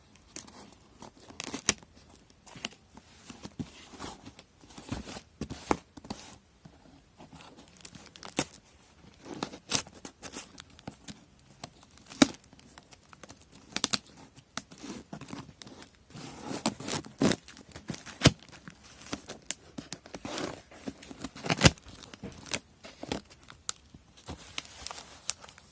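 Shipping packaging being torn open and crumpled by hand: irregular tearing, crinkling and sharp crackles, busiest in the second half.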